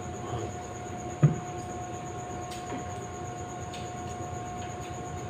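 Steady background hum with a single sharp knock about a second in, and a few faint ticks afterwards.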